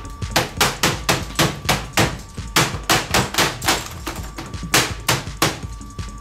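A computer keyboard being banged hard and repeatedly on a wooden desk, about three to four knocks a second, over a thin steady beep. It all cuts off suddenly at the end.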